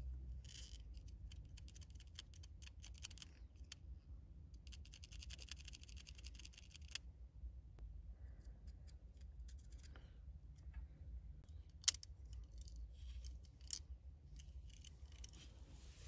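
Faint clicking and scratching of hands and a small tool working the plastic vent-control dial mechanism and thin copper wire. There is a rapid run of ticks in the middle and one sharper click near the end, over a low steady hum.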